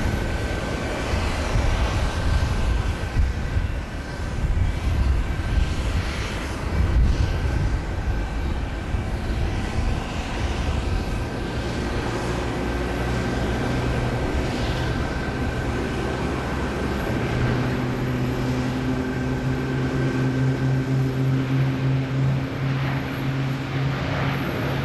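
Jet engines of a Boeing 777-300ER landing and rolling out on the runway: a steady rushing roar with a thin steady whine. About two-thirds of the way in, low steady humming tones come in.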